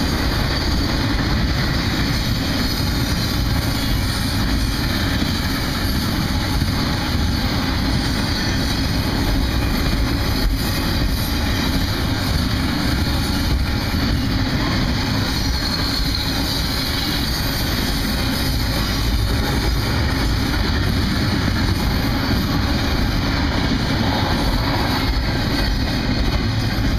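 Double-stack container freight train passing close by, its railcar wheels making a steady, loud rumble on the rails.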